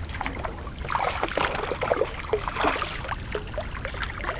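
Water splashing irregularly as a hooked bass thrashes at the surface while it is being landed.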